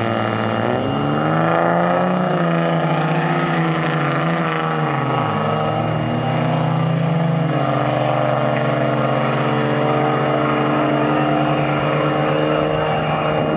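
Diesel pickup truck launching down a drag strip at full throttle, blowing black smoke. The engine note climbs, drops at a gear change about five seconds in, then holds steady as the truck pulls away.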